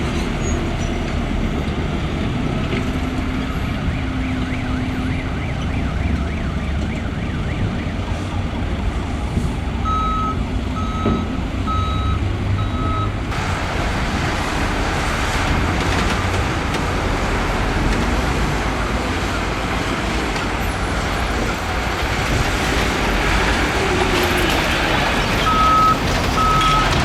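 Heavy diesel earthmoving machinery, a bulldozer and dump trucks, running with a steady engine rumble. A reversing alarm beeps in a short even series about a third of the way in and starts again near the end.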